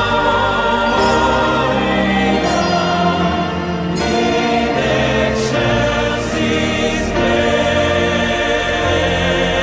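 Background choral music: a choir singing held, wavering notes over instrumental accompaniment.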